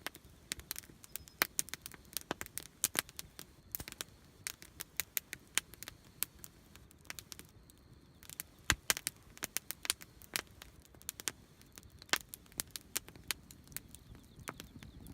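Wood campfire crackling: irregular sharp pops and snaps, several a second, with a louder pop a little before the middle and another about three-quarters of the way through.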